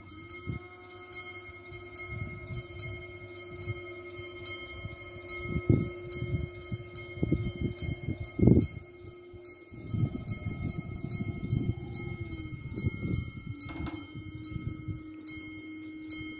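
Electronic warning bell from the level crossing's loudspeakers, ringing about twice a second, while the barrier booms lower with a steady motor hum that shifts pitch about 13 seconds in. Irregular low rumbles and thumps come in under it, loudest about eight and a half seconds in.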